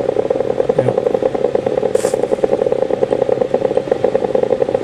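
Myoguide EMG unit's loudspeaker giving the audio of the injection needle electrode: a steady, fast crackling. It is the sound of muscle electrical activity, the sign that the needle tip is in muscle.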